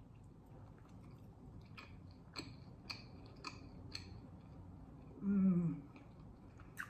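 A person chewing a bite of thick cheese deep-dish pizza, with soft wet mouth clicks every half second or so. About five seconds in comes the loudest sound, a short hummed "mm" falling in pitch.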